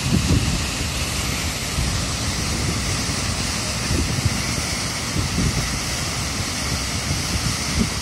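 Steady rushing of a waterfall, several small falls pouring over rock ledges into a pool, with wind buffeting the microphone in low gusts.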